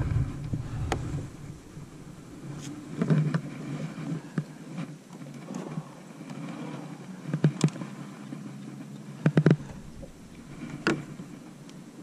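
A boat's motor hums steadily at low pitch. A few sharp knocks and clicks come from tackle being handled on the deck, the loudest a quick double knock about nine and a half seconds in.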